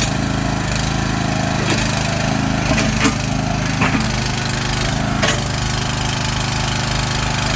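Mini walking excavator's engine running steadily, with short sharp clanks about once a second from the machine working.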